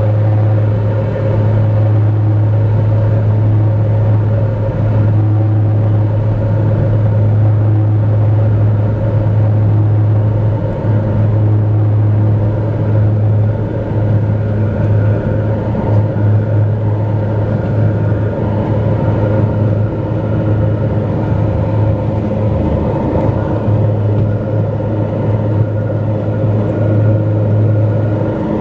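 Cabin noise of a Dornier 228 twin-turboprop airliner in flight: a loud, steady propeller drone with a deep hum and higher steady tones over a broad rumble.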